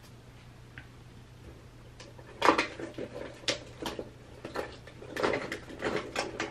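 Hard plastic makeup containers and compacts being rummaged through and set down: a quick run of clicks and knocks starting about two and a half seconds in, over a faint steady hum.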